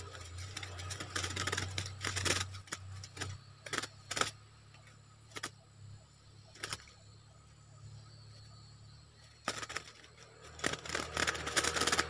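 Two bulbuls scuffling in a wire trap cage, wings flapping and feet scrabbling so the cage wire rattles and clicks in bursts, with the loudest burst near the end.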